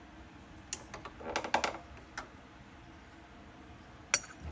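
Light clicks and knocks of small carburetor parts being handled, with a short clatter about a second and a half in and a single sharp click near the end.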